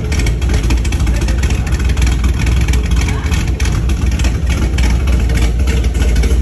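LS3 6.2-litre V8 with an aggressive Stage 3 cam and long-tube headers running steadily, before the engine has been tuned for the new cam.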